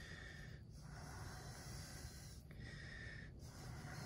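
Faint breathing through the nose, a few breaths in a row, over low room noise.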